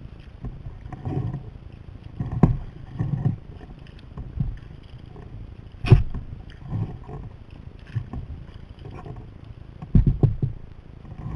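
Kayak paddle strokes: the blade splashing into and pulling through the water about once a second, with water dripping and a few sharp knocks against the kayak.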